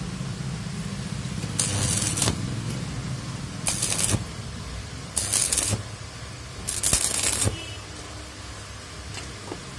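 Arc welding on an electric motor rotor's shaft: four short bursts of crackling, sputtering arc, each under a second, laying weld to build up the rotor's bearing seat for a 6201 bearing. A low hum runs underneath and drops away after the last burst.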